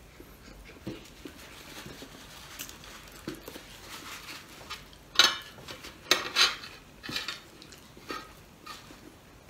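Plate and metal utensils being handled on a dining table: light scraping and rustling, then a cluster of sharp clinks and clatters about five seconds in, and a few softer ones near the end.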